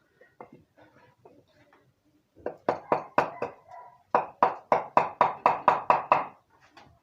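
Hammer tapping on a small motorcycle engine to free a cylinder head stuck on with silicone. A few knocks come first, then a quicker run of about ten sharp strikes, roughly four a second, each with a short metallic ring.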